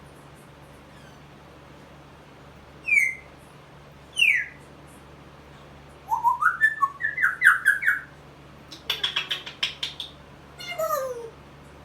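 Pet parrot whistling and squawking: two short falling whistles, then a quick run of rising chirps, a rapid rattling squawk, and a falling call near the end.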